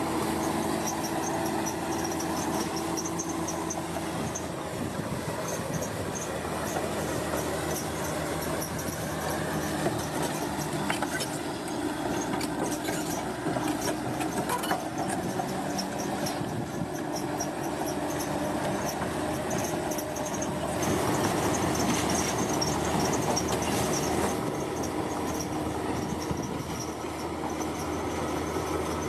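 Heavy construction machinery running steadily, with metallic squealing and occasional clanks. It swells a little louder for a few seconds past the middle.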